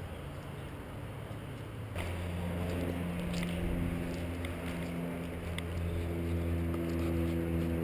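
A steady low engine hum sets in about two seconds in and holds, with a few faint clicks over it.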